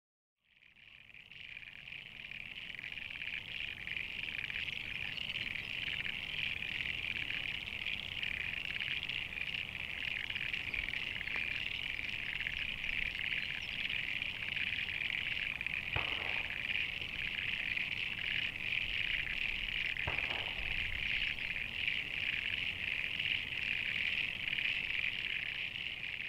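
A dense chorus of frogs calling steadily, a high continuous trilling mass that fades in over the first couple of seconds.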